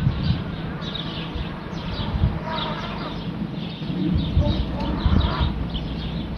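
Small birds chirping in short repeated calls over a steady low rumble, with two brief pitched calls or voices about two and a half seconds apart near the middle.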